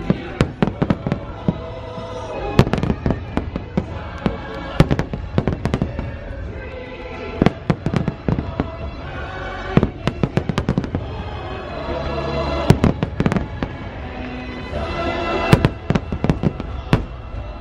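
Aerial fireworks bursting in quick succession, many sharp bangs, over the show's music soundtrack.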